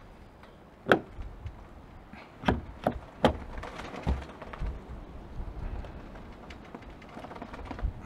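Sharp plastic clicks and knocks of a new exterior car door handle being fitted into its opening in the door: one loud click about a second in, then a quick run of three more about two and a half seconds in, and a few softer knocks after.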